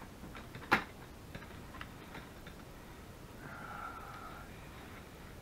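Small handling sounds at a craft table while glue is brushed onto a card: one sharp click about a second in, then a few faint taps.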